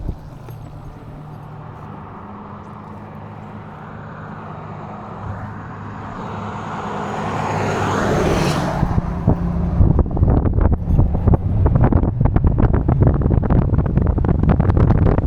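A vehicle passes close by: a low steady hum gives way to a rising whoosh that peaks about eight seconds in and falls away. From about ten seconds on, heavy wind buffets the microphone as the electric bike rides along.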